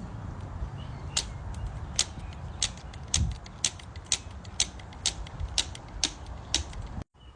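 Sharp mechanical clicking, about two clicks a second, over a low steady rumble, as work is done bleeding an e-bike's hydraulic brakes. It stops abruptly near the end.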